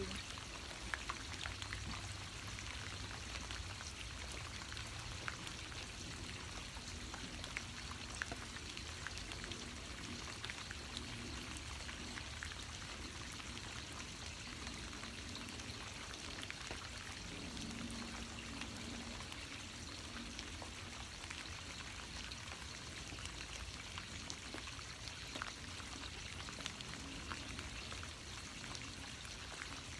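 Steady rain falling, an even hiss with many small drops ticking through it.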